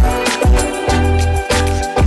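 Background music with a steady beat: a deep kick drum about twice a second under held keyboard chords.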